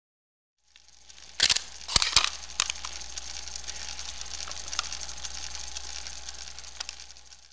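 Cinema projection equipment being switched on: a steady low hum and hiss fade in, with a few sharp switch clicks close together in the first seconds, then light crackle over the running hum.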